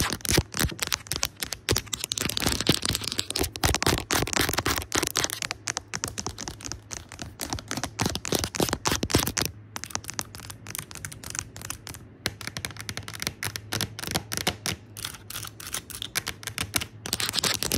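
Fast, aggressive tapping on a camera screen: a dense run of quick sharp clicks with a few brief pauses, over a faint low hum.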